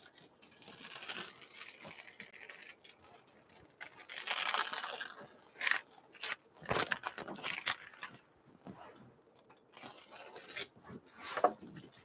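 Green painter's tape being peeled off the edges of a painting and crumpled up: a series of short rips, crackles and crinkles with brief pauses between them.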